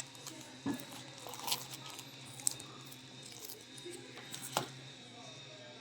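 Hands working a small plastic blood pressure monitor's case: scattered clicks and light scraping, with sharp snaps about a second in, then around one and a half, two and a half and four and a half seconds in.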